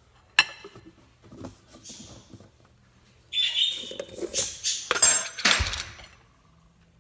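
Kitchen handling sounds: a sharp clink of a butter knife or dish against a plate, then light knocks, then louder rattling and scraping as a plastic peanut butter jar is picked up and opened.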